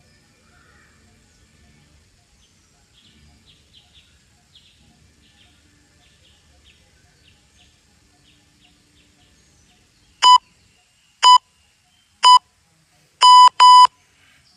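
Electronic timer beeps on one high tone: three short beeps about a second apart, then two longer beeps close together, the countdown pattern of a workout interval timer. Faint bird chirps sound in the background before the beeps.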